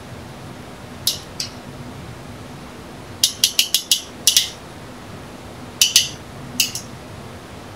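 Sharp metallic clicks and clinks from a PEX cinch tool worked against a brass filter fitting. There are two clicks about a second in, a quick run of about five around three seconds in, then a few scattered clicks.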